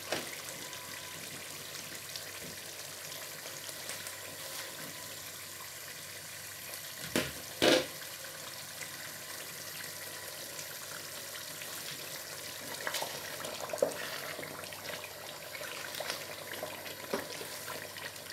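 Tomato stew with meat and stock bubbling and sizzling steadily in a large pot on the stove. About seven seconds in there are two sharp knocks, and near the end a wooden spoon stirs the thick stew, with small clicks and scrapes.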